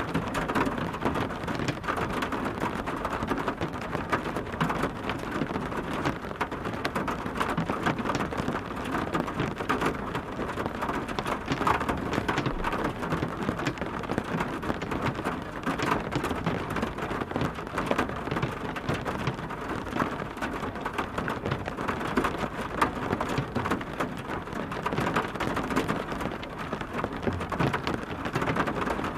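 Steady heavy rain, dense with individual drop hits on a surface.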